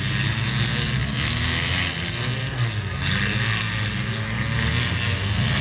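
Engines of demolition derby cars running together in a continuous drone.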